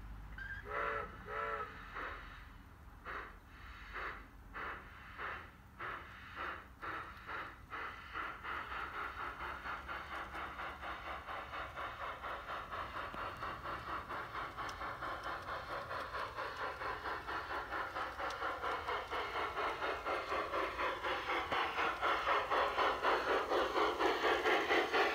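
Large-scale model steam locomotive giving two short whistle toots, then chuffing as it pulls away. The chuffs start slow, about two a second, quicken into a fast steady beat, and grow louder as the train draws near.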